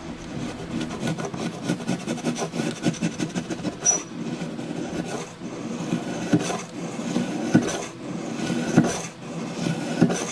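A shop-made plywood scraper with a sharpened drywall-screw head scraping back and forth along the leading edge of a wooden centerboard, cutting a groove in it. It makes a rapid, uneven rasping of metal on wood.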